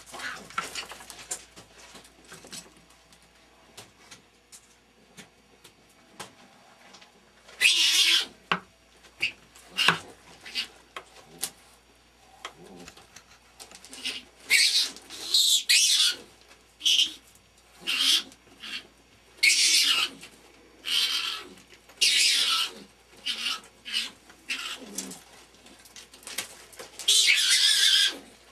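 Skunks mating: a string of short, harsh, hissing cries, mostly under a second each. They begin about a quarter of the way in, come more often after the halfway point, and a longer one follows near the end.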